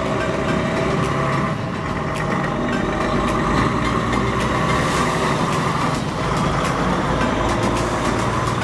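A DAF diesel tractor unit hauling a loaded flatbed trailer drives past: engine running steadily under the sound of the tyres on the road, rising and easing as the rig goes by.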